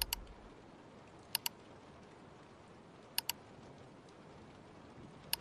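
Computer mouse double-clicks: four quick pairs of sharp clicks, a second or two apart, over faint hiss.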